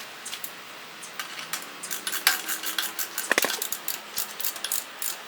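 Metal hand tools clinking and clicking as they are handled, with a quick run of clicks in the middle and one louder ringing clink.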